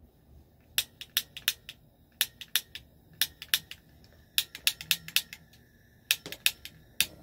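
Butane torch igniter clicked over and over, about twenty sharp clicks in uneven clusters, as the torch, nearly out of butane, fails to stay lit.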